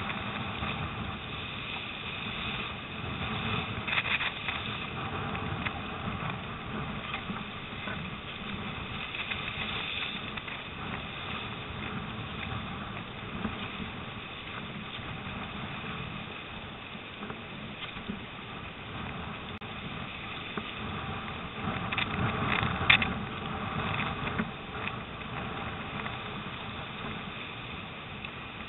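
Storm wind and rough water, with waves splashing and slapping against a surfski's hull as it runs downwind. Brief louder splashes come about four seconds in and again around twenty-two to twenty-three seconds.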